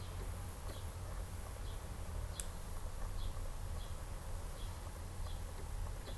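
Quiet room tone with a low hum, faint short high-pitched chirps repeating roughly every three-quarters of a second, and a single sharp click about two and a half seconds in.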